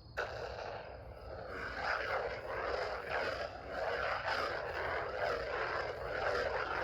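Theory Sabers Soldier lightsaber's sound effects from its hilt speaker: a sudden ignition sound just after the start, then a steady electric hum that swells and fades repeatedly as the blade is swung.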